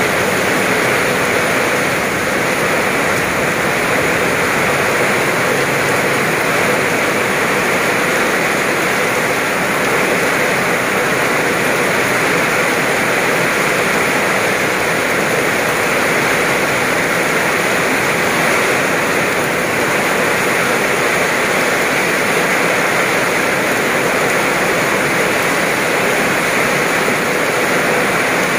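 Heavy rain pouring down onto a wet road and grass, a loud, even hiss that holds steady throughout.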